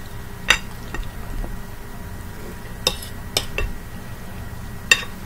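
Fork clinking against a plate, about five light, sharp clinks spread over a few seconds while eating.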